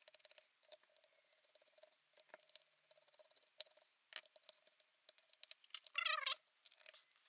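Light clicks and ticks of a precision screwdriver backing small screws out of the plastic case of a Mastech MS6612 light meter, with the screws handled and set down, over a faint steady hum. A brief squeak about six seconds in.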